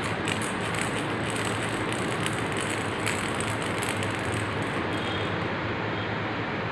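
Plastic baby rattle shaken, clattering in rapid clicks, mostly in the first half, over a steady mechanical whir with a low hum.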